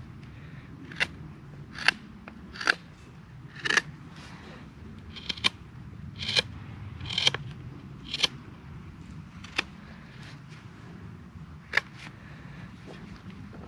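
About a dozen short, sharp snipping or clicking strokes at irregular intervals, over a steady low background rumble.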